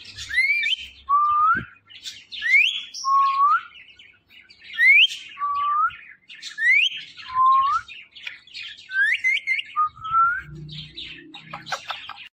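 Pet ringneck parrot repeating its cat-meow imitation over and over, about every two seconds: each call is a quick rising whistle followed by a lower, rising note, with some scratchy chatter near the end.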